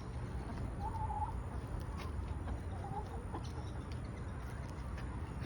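Backyard hens giving a few soft, short clucks now and then over a low steady rumble.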